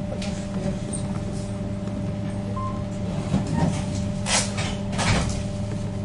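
Cabin sound of a ZiU-682G trolleybus: a steady hum from its equipment, with two short hisses about four and five seconds in.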